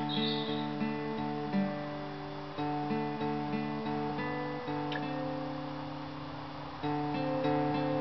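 Acoustic guitar strumming and picking sustained chords, the instrumental close of the song, with a bird chirping briefly right at the start.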